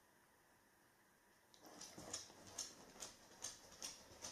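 Near silence for about a second and a half, then a dog's faint breathing: soft hissy breaths about twice a second.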